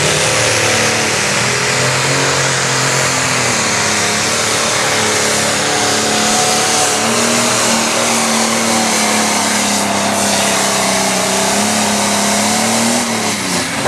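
Turbocharged diesel engine of a light pro stock pulling tractor running at full throttle under heavy load as it drags the weight sled down the track. Its note wavers but holds steady and loud, then falls away near the end as the driver comes off the throttle at the end of a full pull.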